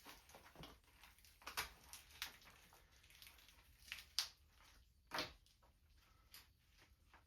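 Near silence broken by a handful of short, faint clicks and scrapes from hand work on a tube of RTV silicone sealant whose nozzle is clogged with cured sealant.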